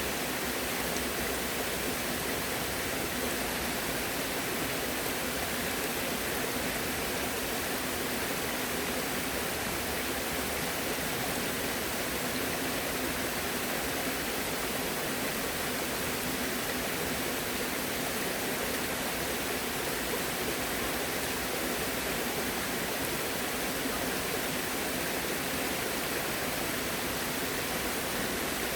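Flowing water rushing steadily, an even, unbroken sound that does not change.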